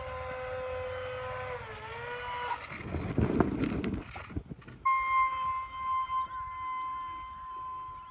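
Electric ducted fan of an E-flite UMX Habu 28 mm micro RC jet whining: a steady lower whine that dips briefly in pitch, a few seconds of rushing noise with clicks, then from about five seconds in a higher steady whine.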